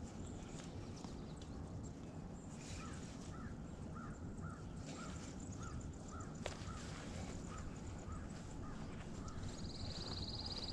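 A bird calling a long run of short, evenly spaced notes, two or three a second, over a steady low background rush. A single sharp click comes about two-thirds of the way through, and a higher, buzzy trill starts near the end.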